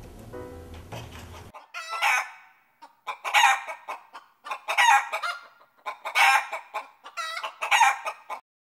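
Piano music ends about one and a half seconds in, then a chicken calls five times, each call about half a second long and about a second and a half apart.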